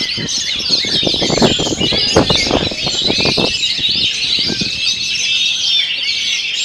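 Oriental magpie-robin (kacer) singing a fast, unbroken stream of varied chirps, trills and whistles. A run of low thumps sits under the song between about one and three and a half seconds in.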